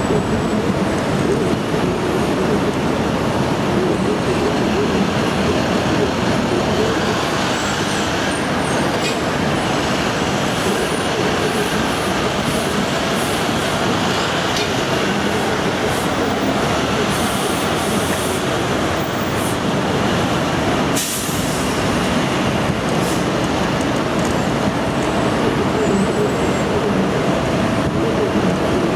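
Steady, loud airport apron roar from aircraft and ground equipment, with a short sharp break about 21 seconds in.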